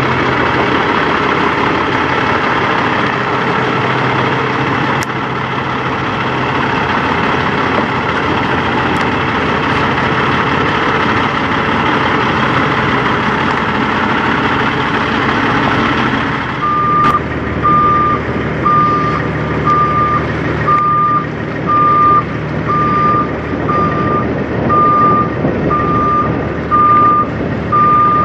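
Peterbilt semi truck's diesel engine running as the tractor-trailer drives slowly past. About halfway through, this gives way to a truck's reversing alarm beeping about once a second over an engine running.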